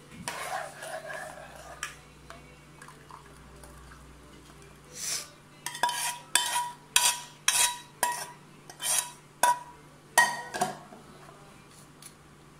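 Palm-jaggery syrup poured from a metal saucepan into a strainer at the start, then a metal spoon scraping and clinking against the inside of the saucepan about a dozen times, roughly twice a second, to get the last of the syrup out.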